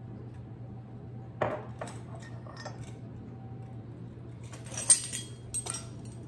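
Metal measuring spoon clinking against a stainless steel mixing bowl as a teaspoon of cinnamon is measured and tipped in. A sharp clink about a second and a half in, then a quick cluster of clinks near the end, the loudest about five seconds in, over a faint steady low hum.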